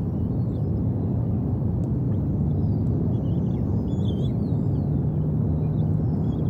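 Steady low rumbling outdoor background noise on the nest-cam microphone. Faint, high, short chirps and whistles from birds come through over it, more often after the first few seconds.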